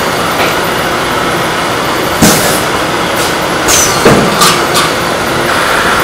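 Automated lotus-leaf pancake machine running: a loud, steady mechanical noise, broken between about two and five seconds in by several short, sharp clacks and hiss-like bursts.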